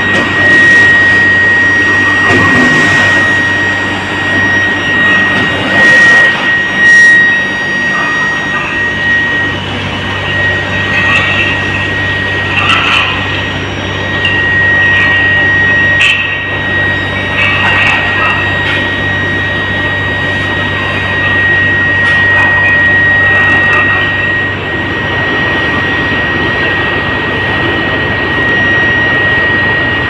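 Steady high-pitched whine and low hum from a running induction melting furnace and its power panel, over the general machinery noise of a foundry. A few short knocks sound around a quarter of the way in and again near the middle.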